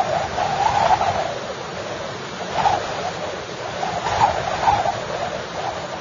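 Strong storm wind gusting, with a wavering whistle that swells with each gust, loudest about a second in and again at around three and four to five seconds.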